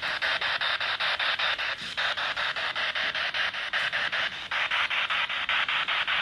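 Ghost-hunting spirit box sweeping rapidly through radio stations: a steady, choppy hiss of static pulsing about eight times a second.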